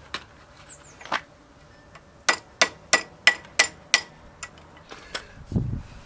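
Hammer taps knocking a pin through a motorcycle's rear brake caliper. Two single taps, then a quick run of six sharp strikes about three a second, then a few lighter taps and a low thump near the end.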